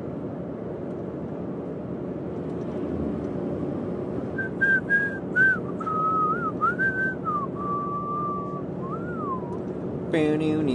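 A person whistling a short, wavering tune of a few notes over steady road noise inside a moving car; a voice starts just before the end.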